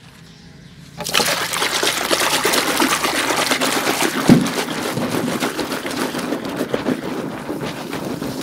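A hand churns and splashes water in a basin, whipping it into foam: wet sloshing and fizzing bubbles that start about a second in, with one low thump about four seconds in.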